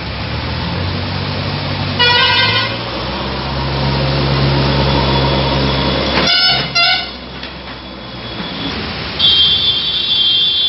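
Road traffic with a heavy vehicle's engine running close by and vehicle horns honking: a short blast about two seconds in, two quick blasts just after six seconds, and a longer, higher horn near the end.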